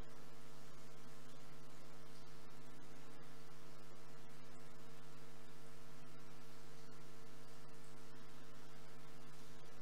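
Steady electrical hum with a faint hiss underneath, holding unchanged throughout.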